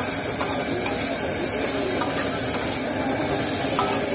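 A metal spatula scraping and clattering rapidly across a flat metal griddle while stirring chopped chicken, onion and green chillies, which sizzle in hot oil underneath.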